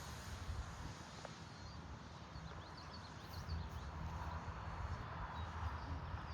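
Wind buffeting the microphone in uneven gusts, with a few faint bird chirps in the middle.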